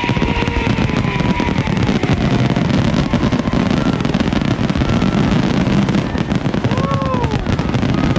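Fireworks display: many shells bursting one after another as a dense crackle over a continuous low rumble, with crowd voices calling out in between.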